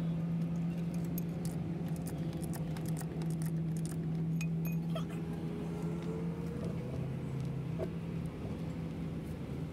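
Steady low engine hum, with light metallic clinks and rattles scattered through the first half.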